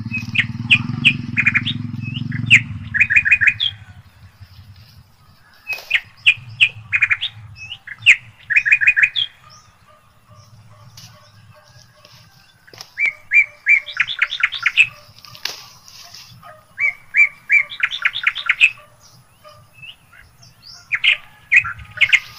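A bird singing short, quick runs of high chirps, several notes to a run, repeated every second or two with gaps between. A low rumble sits under the first few seconds and fades out about four seconds in.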